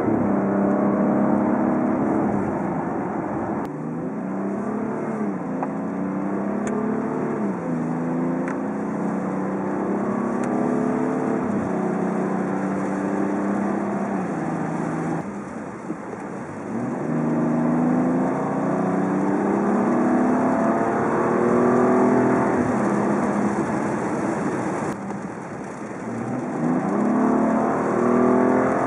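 Stock exhaust of a BMW 335i (F30) with its turbocharged 3.0-litre inline-six, the engine note rising and falling in pitch several times as it is revved or accelerated. It drops back a few times, most clearly about a third of the way in and again near the end, before climbing once more.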